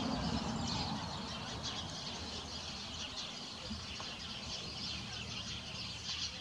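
Faint outdoor background noise with a few short, faint, high chirps, like small birds.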